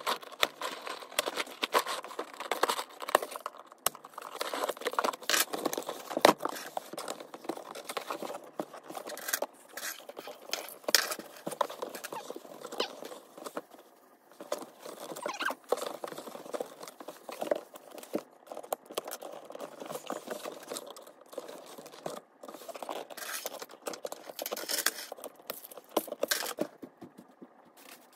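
A key scraping and picking at packing tape on a cardboard shipping box: a dense run of quick scratches, rips and clicks. The footage is fast-forwarded, so the scraping comes out sped up.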